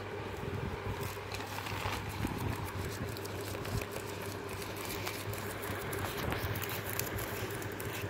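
Pomeranian's claws scratching rapidly and repeatedly at a hard floor as it digs, a quick stream of scrapes and clicks, over a steady low hum.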